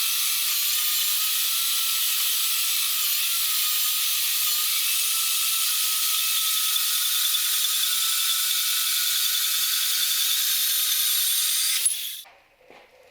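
WEN 94396 portable metal-cutting bandsaw running at its third speed, 204 feet per minute, its blade sawing through 1/4-inch-wall mild steel angle iron. A steady, high-pitched hiss of blade on steel with a faint whine, which cuts off suddenly about twelve seconds in.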